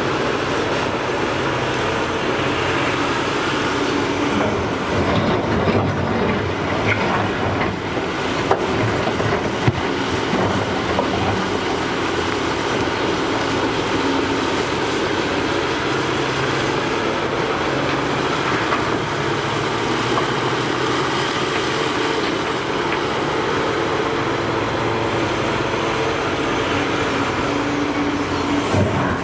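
Caterpillar 6015B hydraulic mining excavator working: its diesel engine and hydraulics run steadily under load as the bucket dumps dirt and rock into a haul truck and digs into the pile. Two sharp knocks about a third of the way in.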